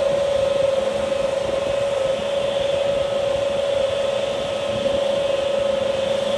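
Airbus A320neo running at idle: a steady jet whine over an even rush of engine noise.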